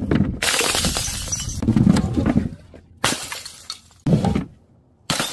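Glass jars tumbling down stairs and shattering: a long run of clattering and smashing glass for the first two and a half seconds, then separate crashes about three and four seconds in, and another near the end.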